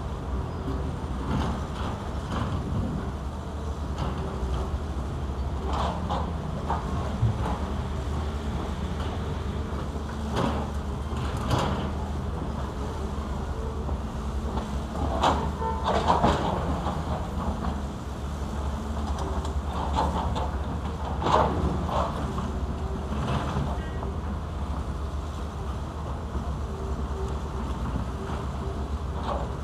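Diesel engines of two crawler excavators, a Zoomlion among them, running steadily under load, with short scraping and knocking sounds every few seconds as the steel buckets work rock and dirt.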